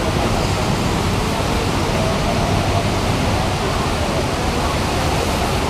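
Heavy rain falling, a steady, even hiss, with a low rumble underneath.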